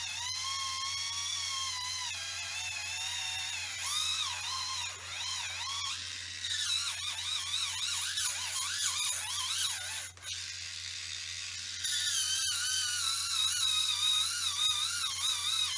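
Kemei electric callus remover's small motor whining as its rotating grinding roller is pressed against hard, cracked skin on the sole of a foot, its pitch wavering up and down with the changing pressure.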